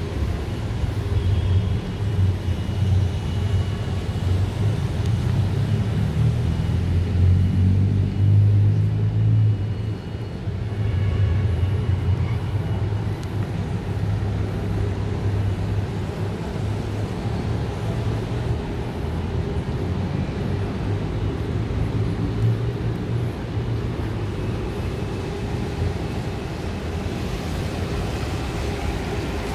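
Street traffic rumbling past, with a vehicle's engine swelling louder about a quarter of the way in, then dropping back to a steady traffic hum.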